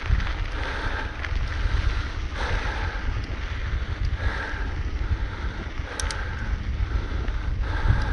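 Wind rumbling over the camera microphone of a mountain bike riding down a dirt singletrack, with the tyres rolling and crunching over the dirt. A brief high squeak comes about six seconds in.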